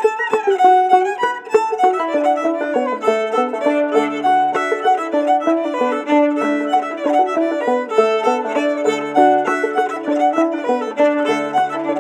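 Old-time fiddle tune played on fiddle with clawhammer banjo, quick bowed fiddle notes over the banjo's steady picked rhythm.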